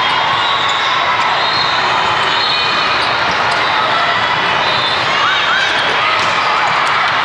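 Din of a large indoor volleyball tournament hall: a steady wash of crowd noise from many courts, with sneakers squeaking on the court and scattered ball hits.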